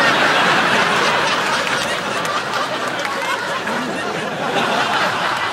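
Sitcom studio audience laughing: a loud burst of crowd laughter that swells up just before and slowly dies away near the end.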